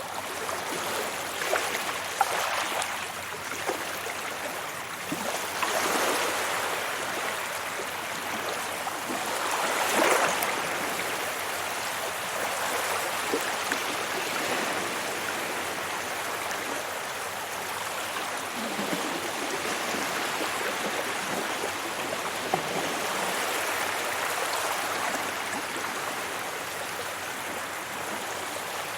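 Waves washing onto a beach: a steady rush of surf, with louder surges about six and ten seconds in.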